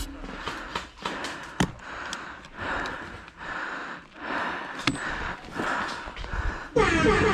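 Repeated swells of breath-like noise with a few sharp clicks. Music with sustained notes cuts in suddenly near the end.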